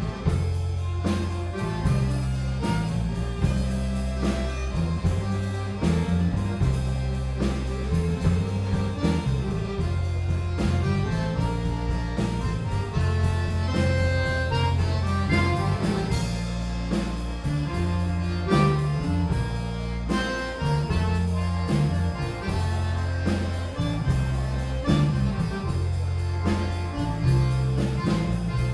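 Live Cajun band playing an instrumental stretch: accordion and fiddle over electric bass guitar and drum kit, with a steady beat.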